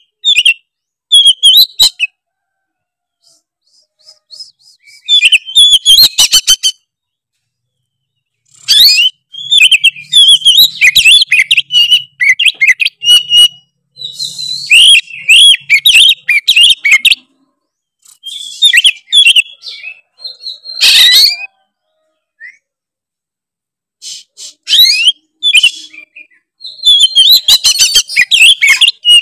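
Oriental magpie-robin (kacer) singing loudly in full song: rapid, varied runs of whistles and chirps, broken by pauses of a second or more.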